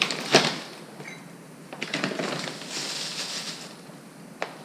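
Plastic bag of Korean red chili pepper flakes crinkling and rustling while a metal measuring cup scoops flakes out of it, with one short tap near the end.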